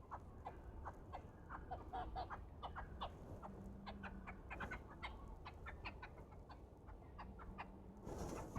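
Chickens clucking softly: many short sounds in quick, irregular succession, with a brief rustling burst near the end.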